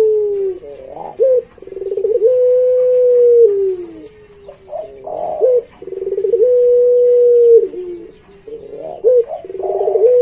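Puter pelung (a long-cooing strain of domestic ringed turtle dove) cooing repeatedly. Each coo opens with a short rough rolling note, then a long drawn-out steady note that sags in pitch at its end, roughly every four seconds, three times over.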